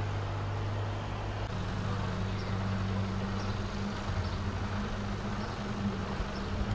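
Brabus 650's 4.0-litre biturbo V8 idling steadily, a deep low hum whose tone shifts about a second and a half in.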